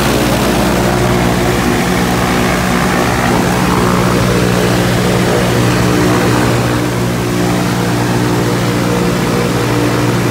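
Liquid-cooled Viking aircraft engine running steadily at about 2,700 rpm, driving the propeller, heard from the cockpit.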